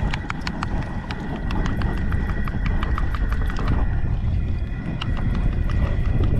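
Metal spoon clicking against a ceramic bowl while stirring a thick sauce, about four or five clinks a second, thinning out after about four seconds. A steady low rumble runs underneath.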